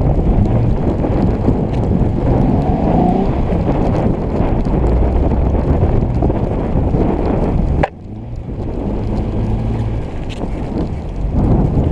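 Jeep Wrangler on 37-inch tires driving through deep snow: a loud, steady engine-and-drivetrain rumble, with wind buffeting the microphone. About eight seconds in there is a sharp click, the sound drops for a moment, then builds again.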